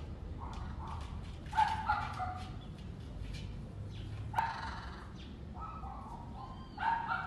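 A parrot giving about five short, harsh calls, the loudest about a second and a half in, halfway through and near the end, with faint short clicks between them.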